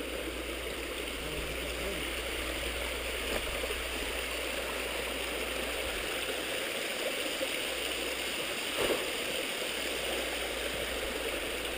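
Small woodland brook running over rocks, a steady rushing and gurgling, with a brief knock about nine seconds in.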